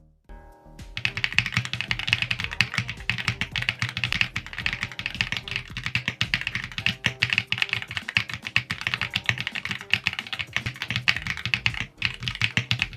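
Fast typing on a Woods65 mechanical keyboard: a dense, continuous run of key clicks starting about a second in, with a brief pause near the end.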